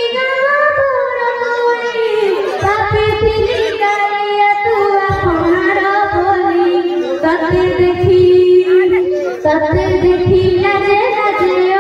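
A girl singing a slow melody with long held notes into a microphone, heard through the PA loudspeakers, with low thumps underneath.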